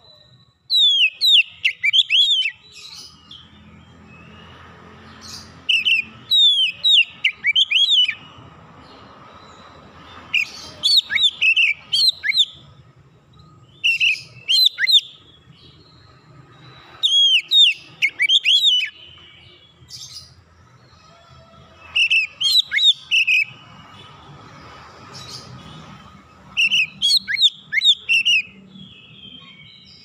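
Oriental magpie-robin singing: short phrases of loud, clear whistled notes, many sliding downward, repeated every few seconds with short pauses between.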